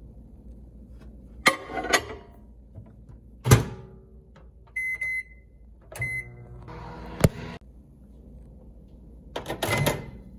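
Countertop microwave oven in use: a clatter of the door and a dish about a second and a half in, a sharp thunk of the door shutting, then two keypad beeps. The oven runs with a hum for about a second, with a click, and near the end there is another clatter as the door is opened and the dish handled.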